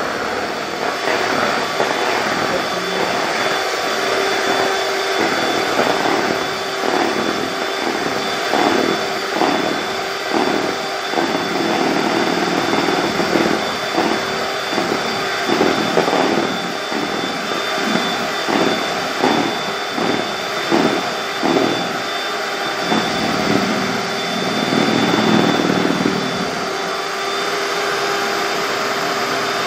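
Handheld electric mixer running steadily, its twin beaters whipping cream in a plastic bowl, with frequent knocks of the beaters against the bowl through the middle stretch.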